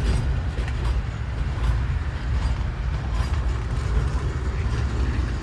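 Freight train cars rolling past at slow speed: a steady low rumble with faint, irregular wheel clicks.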